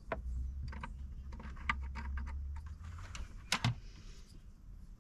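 Light plastic clicks and knocks as the dashboard trim panel is handled and the speaker's wiring connector is plugged in behind it, with two louder clicks close together about three and a half seconds in.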